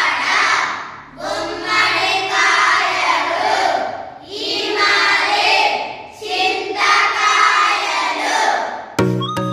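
A group of children's voices in unison, reciting in sing-song phrases of a few seconds with short breaks between them. Near the end an electronic tune of stepping notes cuts in suddenly.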